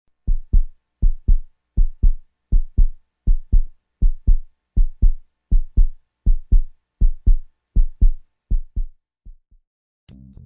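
Heartbeat sound effect: paired low thumps, lub-dub, about 80 beats a minute, growing fainter and stopping near the end.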